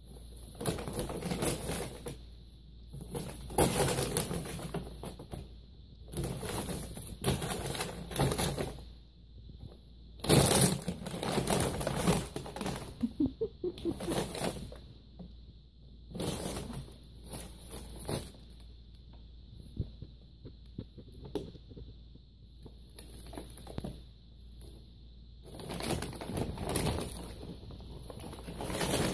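Brown paper bag crinkling and rustling in irregular bursts as a cat rolls in it and bats and kicks at it, the loudest burst about ten seconds in.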